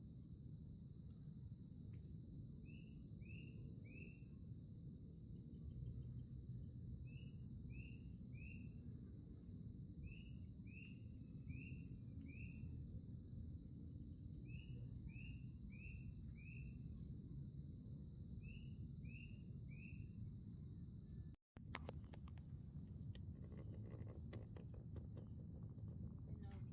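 Steady chorus of crickets and other insects with a low background rumble, and a short chirp repeated two to four times in a row every few seconds. About 21 seconds in the sound cuts out for an instant, and faint clicks follow.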